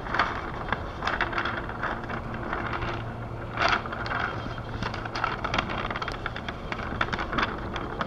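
Homemade fan with a recycled 12 V DC motor running at full speed, with a steady low hum under the rush of its air. A sheet of paper held in the airflow flutters and crackles irregularly.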